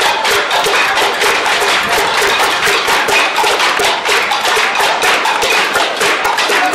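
A group making music: fast, steady rhythmic clapping and tapping, about five beats a second, with a short note repeating in time with it.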